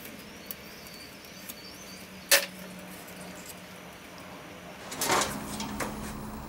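A steel pick clicking and scraping on the retaining ring in the ram saddle of a 1949 Blackhawk bottle jack. A sharp metallic snap a little over two seconds in comes as the ring springs free, and a short clatter of handled metal parts follows near the end.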